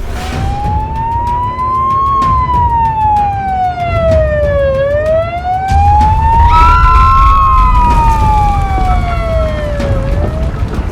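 Emergency-vehicle siren in a slow wail, rising and falling in pitch twice, over a low rumble.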